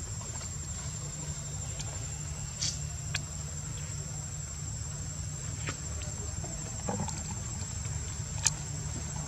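Insects keep up a steady high-pitched drone over a low steady rumble, with a few short faint clicks scattered through it.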